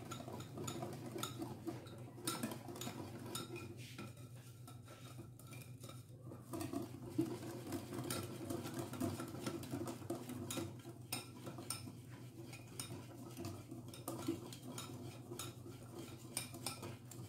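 A wire whisk beating a thick semolina batter in a plastic bowl, its wires scraping and clicking against the bowl in a quick, uneven rhythm.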